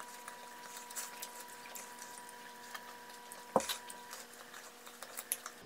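Faint chewing and mouth clicks of a person eating pizza, with one louder click about three and a half seconds in. A faint steady electrical hum runs underneath.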